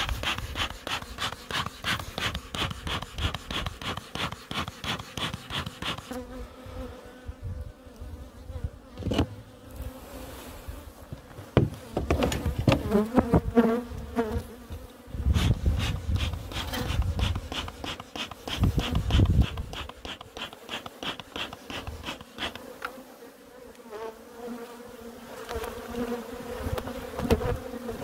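Kangaroo Island Ligurian honey bees buzzing in a steady hum as the hive is opened, with a few knocks and scrapes from the hive parts being lifted off.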